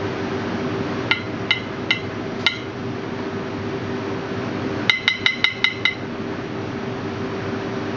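A metal spoon tapping with short, bright clinks as mint oil is shaken off it: four taps about half a second apart, then a quick run of about seven taps around five seconds in. A steady ventilation hum runs underneath.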